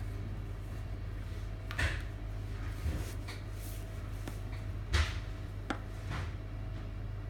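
Light knocks and taps of a hand handling a small toy robot on a wooden desk, about five in all, the loudest about five seconds in, over a steady low electrical hum.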